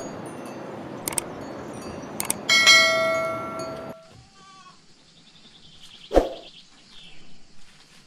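A goat bleats once, a loud steady call starting about two and a half seconds in and lasting over a second, over outdoor background noise. A short sharp knock comes about six seconds in.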